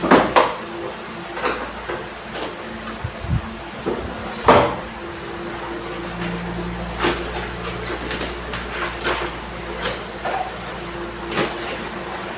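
Scattered knocks and clicks, the loudest right at the start and about four and a half seconds in, over a steady low hum.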